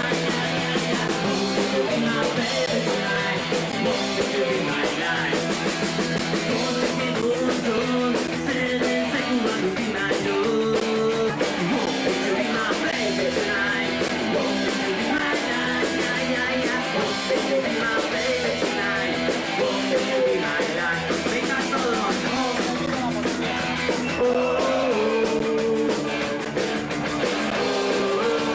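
Punk rock band playing a song, with electric guitar and a singing voice over a steady full mix.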